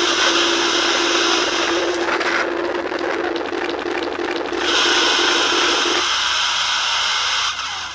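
Loud electronic noise from re-engineered toy synthesizers: a dense hiss over a steady low buzzing tone. The upper hiss drops away for about two seconds in the middle with a rapid flutter, then returns. The low tone stops a couple of seconds before the end, and the noise cuts off just before the end.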